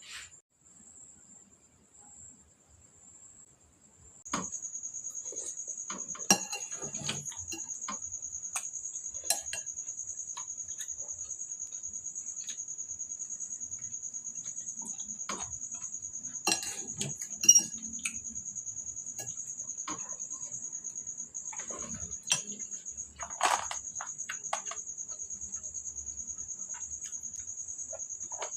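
An insect's high, steady trill, starting about four seconds in, with scattered clicks and clinks of cutlery against dishes.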